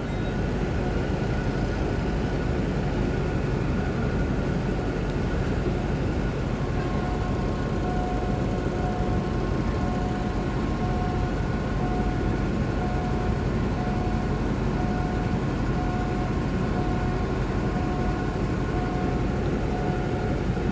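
Steady rumble of a stationary diesel passenger train idling. From about seven seconds in, a level-crossing warning signal beeps roughly once a second over it.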